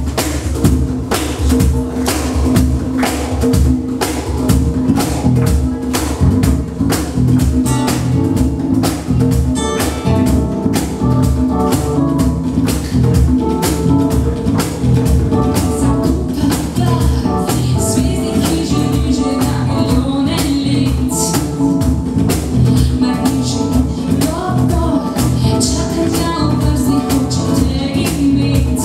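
Live acoustic band playing a song: a cajón and hand percussion keep a steady, quick beat under acoustic guitar, bass guitar and keyboard, with a woman singing.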